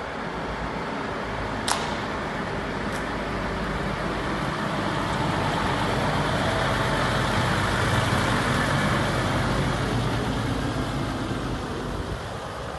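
Scania P94 260 lorry's five-cylinder diesel engine running as the truck drives slowly past, getting louder to its peak about eight seconds in and then fading as it pulls away. A single sharp click about two seconds in.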